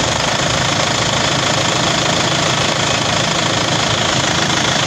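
Isuzu D-Max's 4GH1 four-cylinder diesel engine idling steadily with diesel clatter, running on a newly fitted mechanical injection pump.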